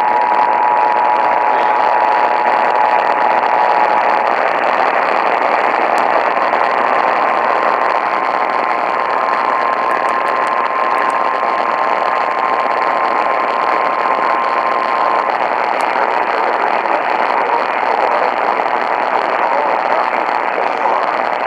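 Two-tone Emergency Alert System attention signal over heavy radio static, cutting off about four seconds in. After a couple of seconds of static alone, the single-tone NOAA Weather Radio warning alarm sounds for about eight seconds, then stops, leaving only the static hiss.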